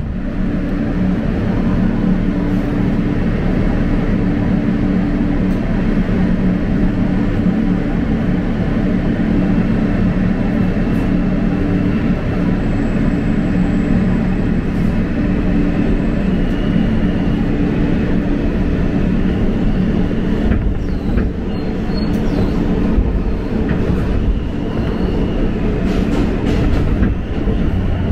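R160 subway train pulling out of a station and running into the tunnel, heard from inside the car: a steady low rumble and hum with a faint high whine that rises slightly. In the second half come scattered clicks and knocks of the wheels over the rail joints.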